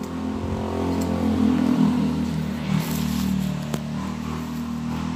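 A motor vehicle's engine passing by, a steady low drone that grows louder for the first couple of seconds and then slowly fades.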